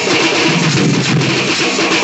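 A troupe of drummers beating metal-shelled stick drums together in fast, continuous festival drumming.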